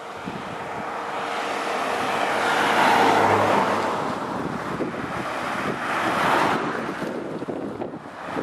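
Wind rushing over the microphone and road noise from a moving vehicle, swelling louder about three seconds in and again around six seconds.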